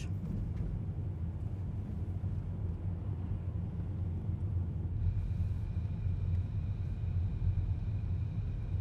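Car cabin: a steady low rumble of engine and road noise while driving. About halfway through, two faint steady high tones join in.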